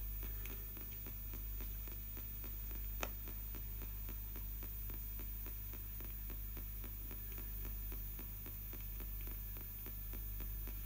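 Spirit box radio sweeping the AM band in reverse: a steady hiss of static over a low hum, chopped into rapid even flickers as it skips from station to station, with one short click about three seconds in.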